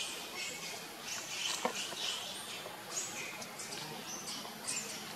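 Young monkeys giving repeated short, high-pitched squeals and squeaks, with a sharp tap about one and a half seconds in.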